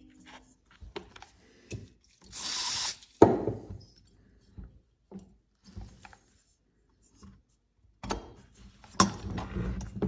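Handling noise of a chainsaw cylinder being worked down over its piston while the second piston ring is squeezed in by hand: small clicks and metal rubbing. A brief loud hissing burst comes about two and a half seconds in, then a sharp click, and a cluster of knocks near the end as the cylinder goes down over the ring.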